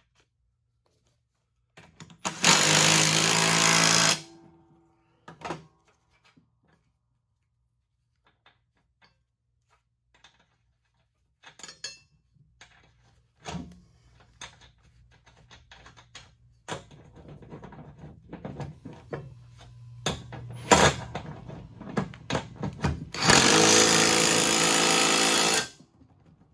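Impact wrench running in two bursts of about two seconds each, one near the start and one near the end, as the sharpened mower blades are bolted back onto the deck spindles. Scattered metal clinks and knocks of tool handling come in between.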